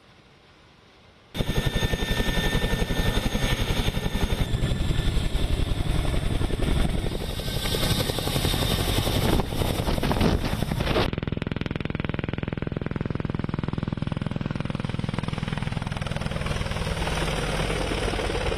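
Military helicopters flying low: fast, even rotor chop with engine noise, starting abruptly about a second in. The sound changes about two-thirds of the way through, losing some of its high end.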